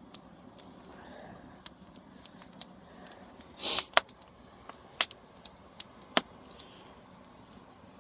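Driftwood campfire crackling, with irregular sharp pops; the loudest come about four, five and six seconds in.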